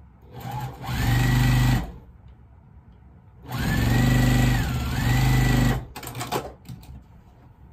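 Sewing machine stitching a seam in two runs: a short one, then a longer one starting about three seconds in that slows briefly midway before picking up again. A few light clicks follow after the machine stops.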